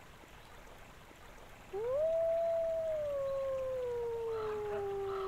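A canine howl: one long call that starts about two seconds in, rises quickly, then slides slowly down in pitch for about three seconds.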